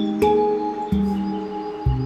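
Background music: soft sustained notes, a new one struck about every half second.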